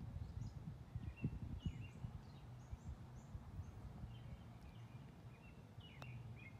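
Songbirds chirping sporadically over a low, fluctuating rumble of wind on the microphone, with a single faint tap of a putter striking a golf ball near the end.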